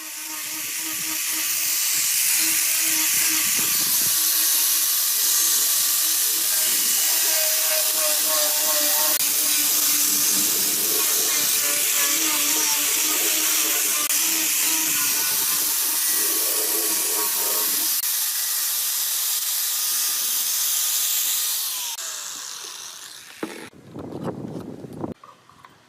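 A loud, steady hiss, like air or gas rushing out under pressure, running for about twenty seconds before fading out. A few light knocks follow near the end.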